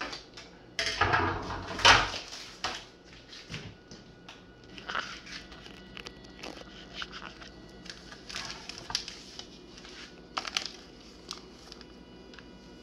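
Crinkling and rustling of a plastic vacuum-sealed food bag being handled, loudest in a burst about a second or two in, then scattered lighter clicks and rustles over a faint steady whine.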